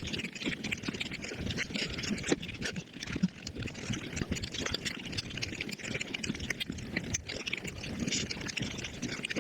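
Eating sounds sped up to five times normal speed: a rapid, continuous run of wet chewing and smacking clicks.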